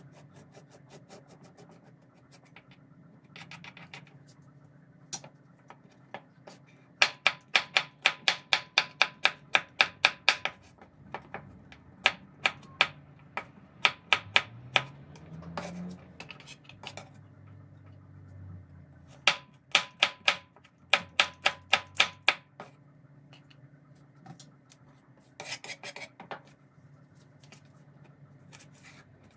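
Kitchen knife slicing cucumber on a wooden cutting board, in quick runs of sharp chopping strokes about five a second with pauses between. Near the start there is softer scraping as a spoon scoops out the cucumber seeds.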